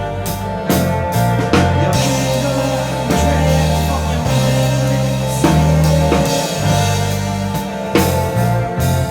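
A band's instrumental passage with no vocals: a drum kit with bass drum and snare playing over a stepping bass line and held chords.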